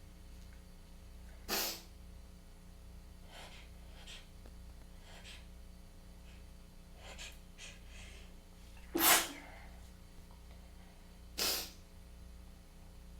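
A person sneezing three times, with softer breaths between: a tickly, congested sneezing fit. The second sneeze, about nine seconds in, is the loudest.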